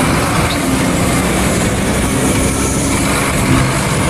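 Concrete mixer truck's diesel engine running steadily as the truck drives slowly by, a low engine drone under a broad rushing road noise.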